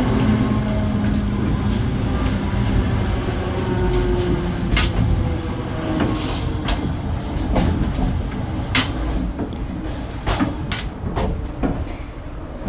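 Old Spanish-built series 2100 electric multiple-unit train running, with a steady low rumble. Sharp clicks and knocks come through it, more often in the second half.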